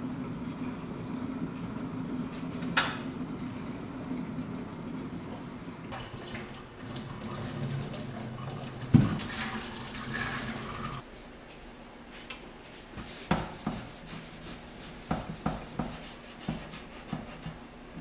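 Water from a kitchen tap running into a glass electric kettle for a few seconds, with one sharp clunk partway through, over a steady low hum that cuts off when the water stops. Then a string of light knocks and rubbing as the kettle is handled and wiped with a cloth towel.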